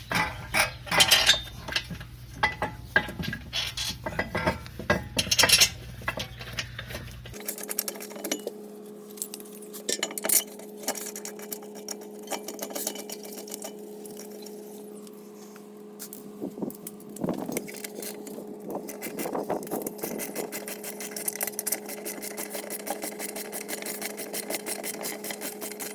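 Metal clinking and knocking as a brake caliper is lined up and fitted over a new rotor, then long runs of quick clicks from a socket wrench ratcheting the caliper bolts in. A steady low hum sits under the clicking from about seven seconds in.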